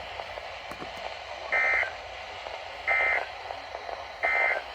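Emergency Alert System end-of-message data tones: three short, evenly spaced bursts of buzzy two-tone warble, about a second and a half apart, over steady radio hiss. They mark the end of the alert broadcast.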